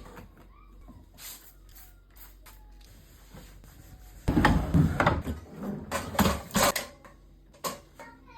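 Household handling noises: after a few quiet seconds, a run of knocks and rustling starts about four seconds in and stops a few seconds later, with one more small knock near the end.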